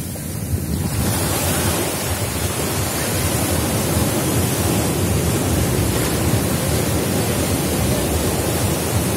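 Sea surf breaking and washing up a sandy shore, a steady rushing hiss that fills in louder about a second in, with wind on the microphone.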